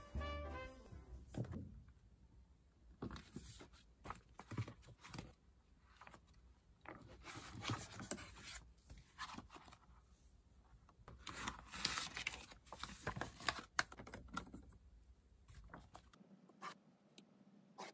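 Paper pages of a workbook being handled and turned: faint, irregular rustling and rubbing of paper on a desk.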